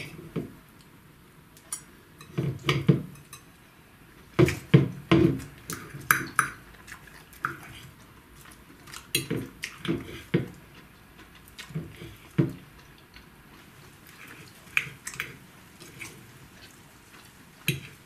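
Metal fork and knife clinking and scraping against a glass plate while cutting an omelette: irregular clusters of sharp clicks every few seconds, with quiet gaps between.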